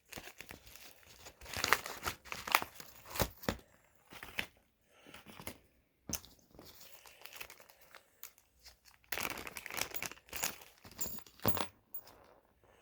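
Parcel packaging being torn open and crinkled by hand, in irregular crackling bursts, busiest about two to three seconds in and again from about nine seconds.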